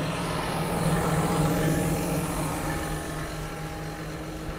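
John Deere R4050i self-propelled sprayer's diesel engine idling with a steady hum.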